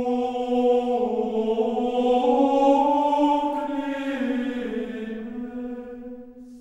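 Gregorian chant: a single sung line of long held notes that steps up in pitch and back down, then fades out near the end.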